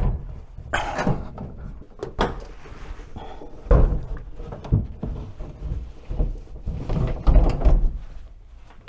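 Knocks, bumps and scraping as an over-the-range microwave oven is heaved up into place against its wall mounting bracket and the cabinet above it. Several heavy low bumps come about four seconds in and again near the end.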